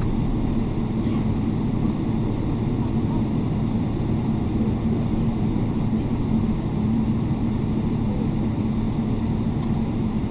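Steady rumble of a Boeing 777-300ER's passenger cabin, with a steady low hum running through it.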